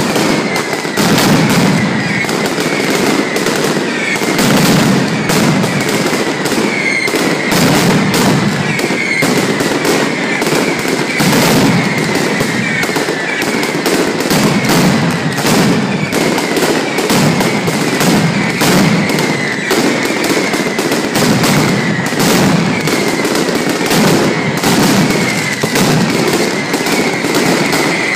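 Mascletà: strings of masclet firecrackers hung on overhead cords detonating in a dense, unbroken barrage of sharp bangs.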